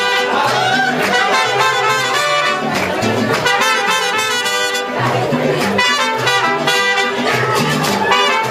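Mariachi band playing live: trumpets and violins carry the melody over strummed guitars and a steady, rhythmic bass line.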